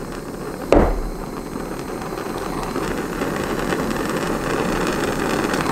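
Handheld propane torch: a sharp pop about a second in, then the flame's steady rushing hiss, growing slowly louder, as it heats heat-shrink tubing over a wire connection.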